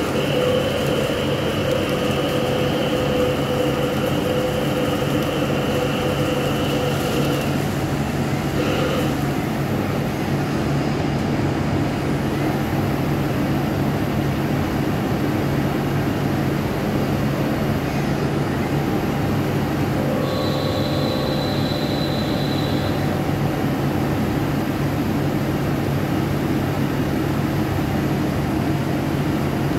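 CNC lathe turning a metal shaft with a turret-mounted insert tool: a steady machine hum, with a high tone from the cut for the first seven seconds and another for a few seconds about twenty seconds in.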